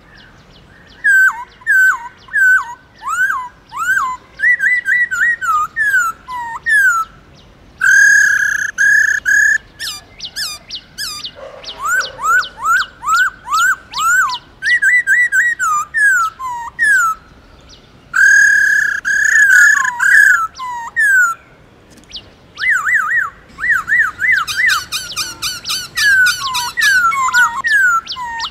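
Black-throated laughingthrush singing loudly: runs of clear whistled notes that swoop down and up, broken by short pauses, with a few held notes and a quick zigzagging run late on.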